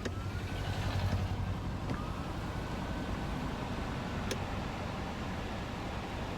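Interior cabin noise of a Genesis GV70 SUV driving: a steady low road and tyre rumble, with a faint single click about four seconds in.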